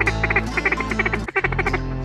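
Rapid runs of duck quacking, short chattering calls in quick succession, over steady background music.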